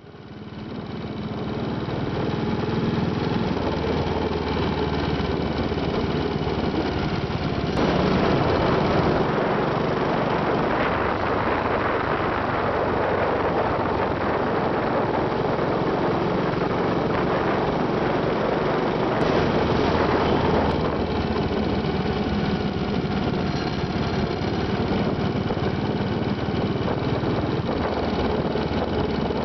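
Royal Enfield single-cylinder motorcycle engine running steadily while riding, heard from on the bike, fading in at the start. From about eight seconds in to about nineteen seconds a louder rushing noise of wind and road joins it.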